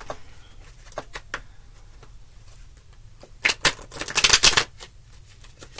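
A deck of tarot cards being shuffled by hand: a few soft taps and slides of the cards, then a quick, dense flutter of cards about three and a half seconds in, lasting about a second and the loudest part.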